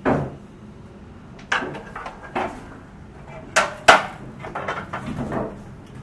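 Irregular sharp knocks and clanks from building work, a few seconds apart. Two come close together just past the middle, the second the loudest and followed by a short metallic ring, and a run of lighter knocks follows near the end.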